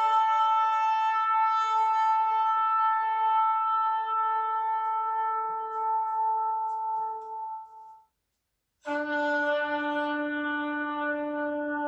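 Shofar blown in one long, steady blast that fades and stops about eight seconds in. After a brief silence, a second, lower-pitched blast begins.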